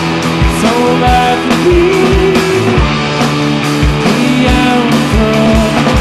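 Gothic rock band playing live in an instrumental passage: a steady drum beat under sustained bass notes and melodic lines.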